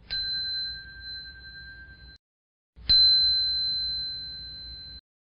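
A small bell struck twice, about three seconds apart, each strike ringing with two clear high tones. The second strike is louder. Each ring fades for about two seconds and then cuts off abruptly.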